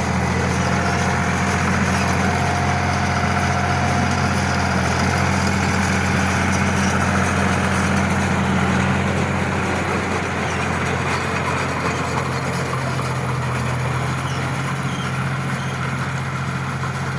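John Deere 5103 tractor's three-cylinder diesel engine running at a steady speed.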